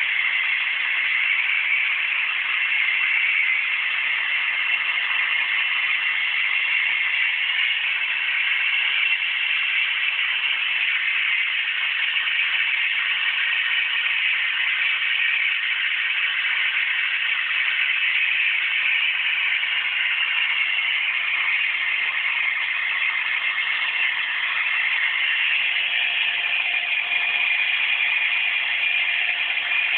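Vacuum cleaner motor running steadily.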